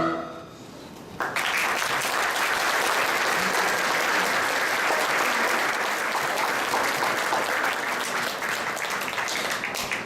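Audience applause, breaking out suddenly about a second in and going on steadily.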